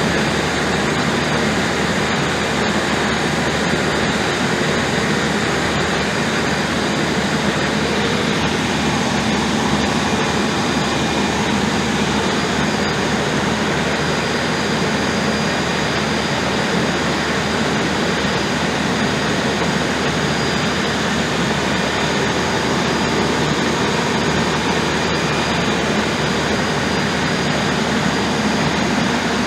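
Diesel generator converted to dual fuel (diesel and gas) running steadily: a loud, even engine drone that holds unchanged throughout.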